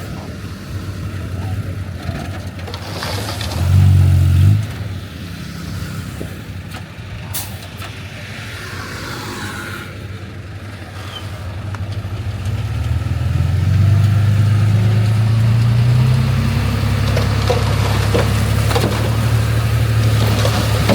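Heavy diesel engines of earthmoving machines at work: a short loud surge of engine power about four seconds in. Then an engine builds up from about twelve seconds and runs hard, with a few clanks near the end.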